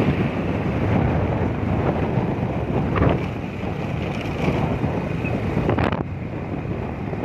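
Wind buffeting the microphone of a moving vehicle, a steady low rushing mixed with road noise, with a couple of brief knocks about three and six seconds in.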